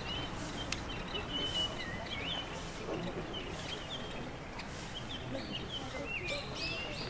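Small songbirds chirping: many short, high calls one after another over a steady outdoor hiss, with a quicker, louder run of chirps near the end.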